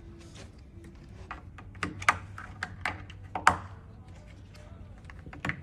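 A series of sharp clicks and taps as black plastic cover caps are pressed into the screw holes of a bed-frame panel, the loudest about three and a half seconds in.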